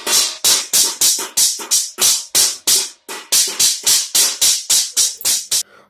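Music with a fast, even percussive beat of about five hits a second, with a brief break about three seconds in.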